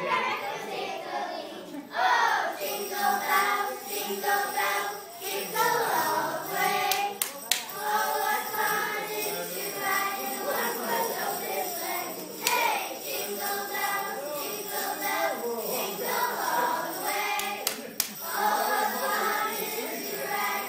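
A group of young girls singing a Christmas carol together from song sheets.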